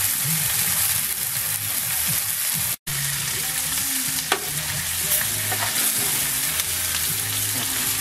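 Floured lamprey pieces sizzling steadily as they sear in hot oil in a deep nonstick pan, stirred and turned with a knife. A single knock comes about four seconds in, and the sound cuts out for an instant just before that.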